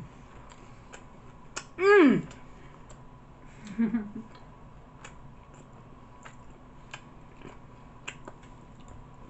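Close-up chewing of a cheesesteak sandwich, with scattered sharp wet mouth clicks and smacks. A short, satisfied "mmm" falls in pitch about two seconds in.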